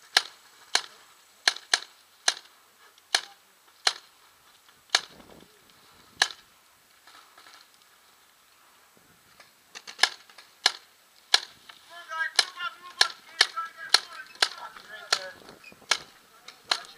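Paintball markers firing single shots at an irregular pace, each a sharp pop. About a dozen shots come in the first six seconds, then a pause of about three seconds, then a quicker run of shots to the end.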